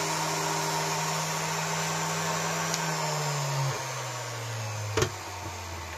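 Flexible-shaft Dremel-type rotary tool running with a brass wire brush on an aluminium engine cover, a steady motor whine; about three seconds in its pitch drops as the tool slows. A single sharp click about five seconds in.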